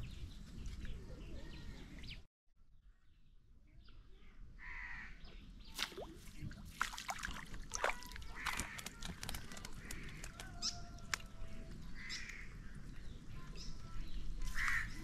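Crows cawing, one call about every three to four seconds, with scattered sharp clicks in between.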